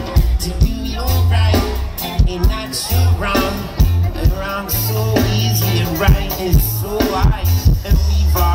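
Live reggae band playing through a concert PA: deep held bass notes, steady drum hits and electric guitar.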